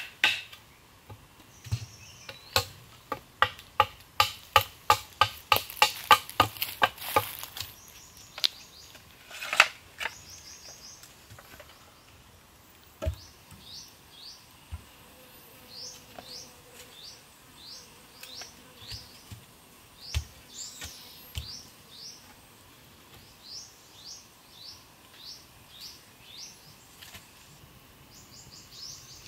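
A blade chopping into a wooden pole in sharp strokes, about two a second, for the first seven seconds or so, with one more stroke a little later. After that, a bird calls over and over with short rising chirps, and a few soft wooden knocks come in between.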